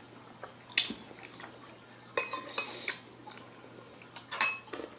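Metal spoon clinking against ceramic bowls during a meal: several separate clinks, two of them ringing briefly.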